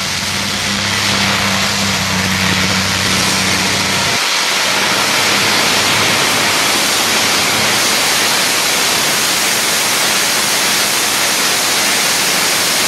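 Twin Allison V-1710 V12 aircraft engines of a modified pulling tractor, running on methanol. For about the first four seconds they hold a steady, even hum, then change to a louder, denser sound that stays steady as the tractor hauls the weight sled.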